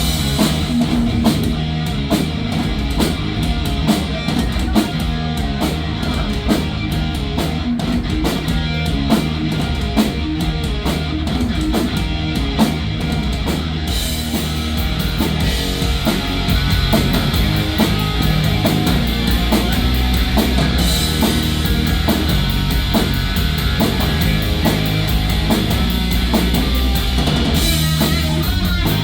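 Live hard rock band playing an instrumental passage with heavy electric guitars and a pounding drum kit.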